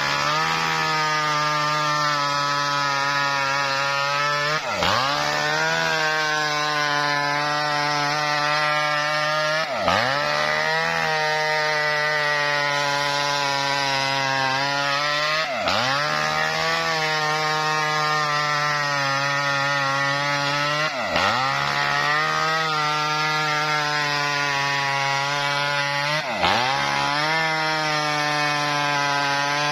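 Engine of a small Maestro wood-cutting machine running steadily under load while ripping a coconut-palm trunk. Its pitch dips sharply and recovers about every five seconds.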